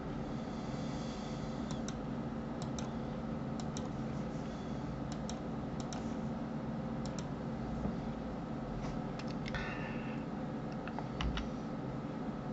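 Computer mouse buttons and keyboard keys clicking: scattered single and paired clicks, over a steady low background hum.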